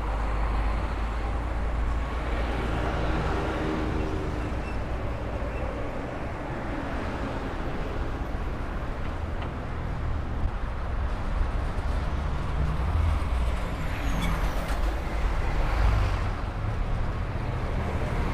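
Road traffic noise: a steady rumble of vehicles with a continuous hiss, no single event standing out.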